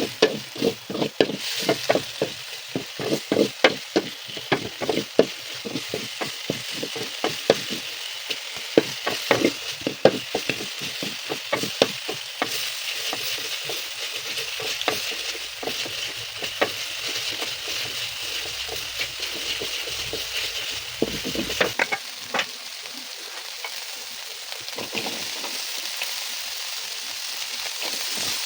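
Food frying and sizzling in hot oil in a pan, with a utensil stirring and scraping against the pan in quick repeated clicks through the first half. After that it is mostly a steady sizzle, with a few more scrapes later on.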